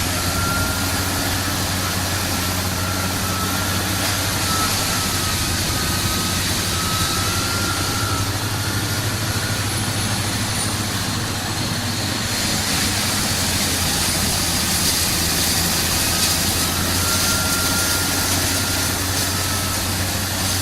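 Forestry mulcher running under power: a steady, heavy engine drone with a wavering high whine over it, turning busier and more hissing about twelve seconds in.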